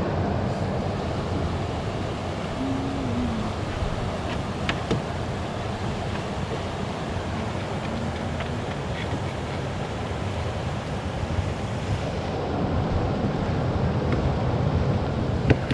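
Steady rushing noise of wind and river water, with a few faint clicks.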